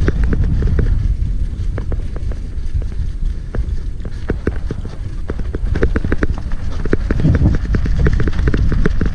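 Mountain bike descending a rough dirt trail, heard from a camera on the bike or rider. Wind and tyre rumble mixes with fast rattling and clicking from the chain and frame over bumps. The clatter thins out a second or so in and grows dense again about six seconds in.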